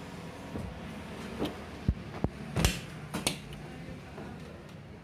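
Claw machine's mechanism working: a steady motor hum, with a few sharp clicks and knocks in the middle as the claw closes on a boxed prize and lifts away.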